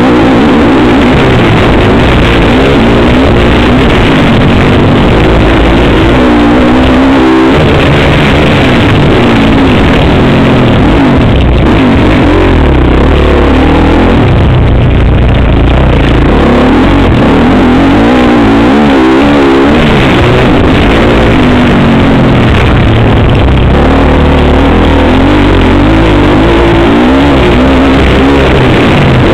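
Motocross bike engine heard from a camera mounted on the bike, revving up and falling back again and again as the rider races round a dirt track, with wind rush. Very loud and overloaded throughout.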